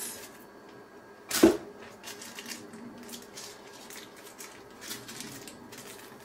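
Handling of sunglasses in a fabric drawstring pouch and thin plastic wrap: faint rustling and crinkling as they are pulled out and unwrapped, with one sharp knock about a second and a half in.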